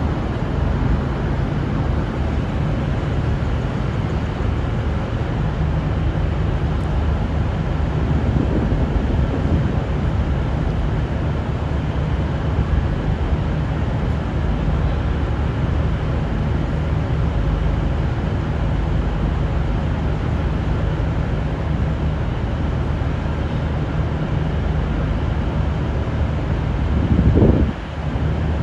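V/Line VLocity diesel multiple unit's engines running steadily, the sound sitting low and even, with one brief louder burst near the end.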